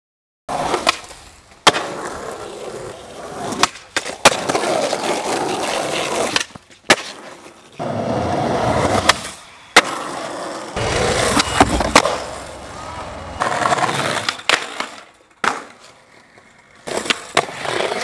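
Skateboard wheels rolling over concrete pavement, broken again and again by sharp cracks of the tail popping and the board landing. It starts about half a second in.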